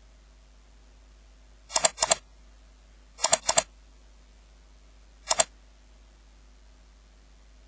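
Computer mouse button clicks: two quick double-clicks about a second and a half apart, then a single click past five seconds in, over a faint steady hum.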